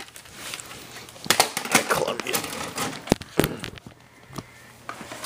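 VHS cassette being handled and pushed into a VCR, a string of clicks and clunks from the cassette and the deck's loading mechanism, with two sharp clicks close together about three seconds in.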